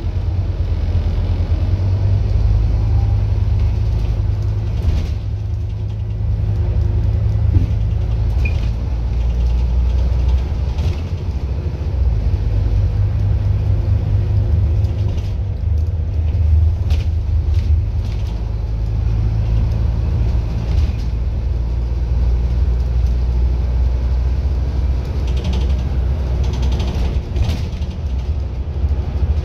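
Scania N230UD double-decker bus with an Alexander Dennis Enviro400 body, under way and heard from the upper deck: a steady, deep diesel rumble from its rear-mounted nine-litre five-cylinder engine that swells and eases with the driving. A few brief rattles and clicks from the bodywork come through.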